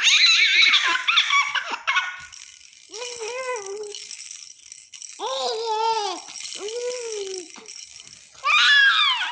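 Infant cooing, squealing and giggling in five high-pitched bursts, each gliding up and falling away, the loudest squeals at the start and near the end. A light rattling runs beneath the voice.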